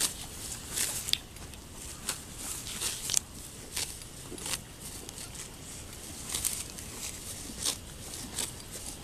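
Holstein dairy cow grazing, tearing off full mouthfuls of pasture grass: a run of short, sharp ripping sounds at an irregular pace of about one a second.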